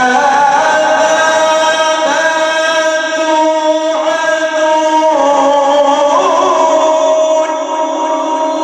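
A male Quran reciter holding one long melodic note with no words, the pitch stepping and wavering a few times along the way.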